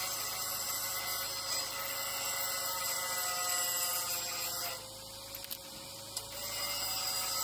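Steady machine hum with an even hiss from a portable generator running to power a welder, dipping in level for about a second and a half midway.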